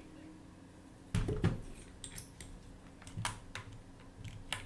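Handling noise of small hard objects on a workbench: a short clatter just over a second in, then a scatter of light clicks and ticks.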